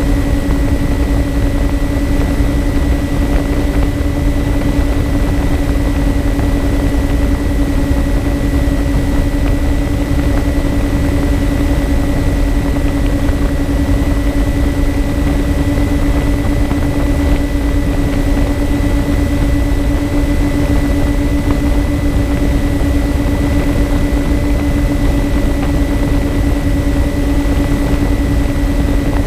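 Twin electric motors and propellers of a MyTwinDream FPV model plane running at constant cruise throttle: a steady hum with a thin high whine above it, over a constant rush of air noise.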